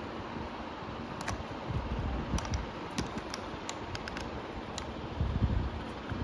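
Scattered small sharp clicks of a screwdriver working the wheel screw on an RC rock crawler's plastic wheel hub, with two low handling knocks, the louder one about five seconds in, over a steady hiss.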